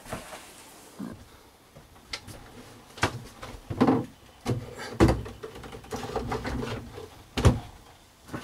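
Scattered knocks, thumps and rustles of gear being handled and put away in a wooden boat cabin, with a sharp knock about 5 seconds in and the loudest thump near the end.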